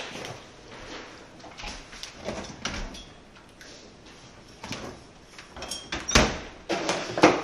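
Refrigerator door being opened and items handled in its door shelves, with two sharp knocks about six and seven seconds in.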